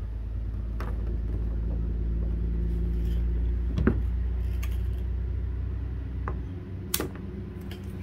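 A low, steady motor hum with several held tones, swelling a little and then easing off late on. Over it come a few light clicks and taps as flexible LED light strips are handled and laid on the plastic kayak hull.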